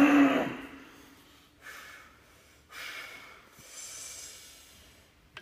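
A man taking three sharp, forceful breaths, each about half a second, while bracing over a heavily loaded barbell before a deadlift pull.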